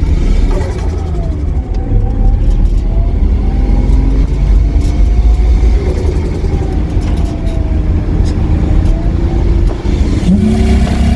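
Turbocharged Holden VL's engine under hard acceleration, its pitch rising and falling repeatedly as it revs through the gears, with turbo whine on top. It starts missing as soon as it comes onto the wastegate.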